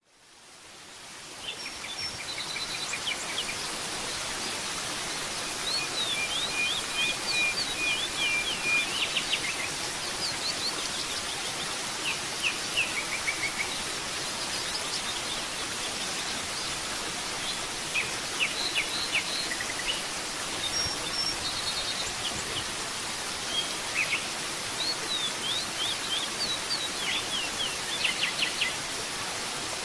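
Steady rush of falling water, a waterfall, with many birds chirping and trilling over it. The water fades in at the start.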